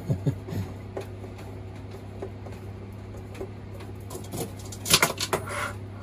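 Small clicks and scrapes of a screwdriver and hands working loose the screws and brackets of an aluminum shower-curtain track overhead, with a louder clatter of the hardware about five seconds in. A steady low hum runs underneath.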